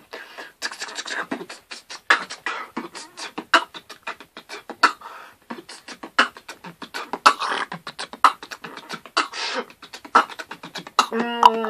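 Beatboxing made inside the mouth, lips mostly closed: a quick, uneven run of clicks, hisses and snare-like mouth sounds. Near the end a hummed tone with stepping pitch joins the beat.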